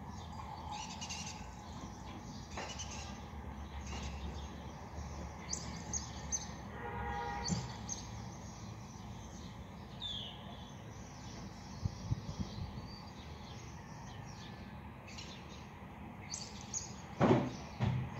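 Small birds chirping on and off over a steady low background hum of the surroundings. A sharp knock or thump sounds near the end, louder than the birds.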